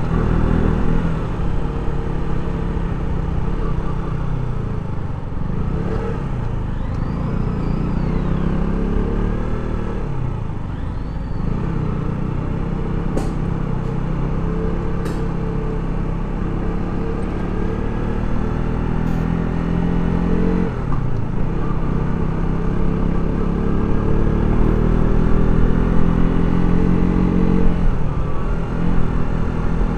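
Motorcycle engine running under way, with wind and road rumble. Its pitch climbs and falls back several times as the bike speeds up and slows, with sharp drops twice in the second half.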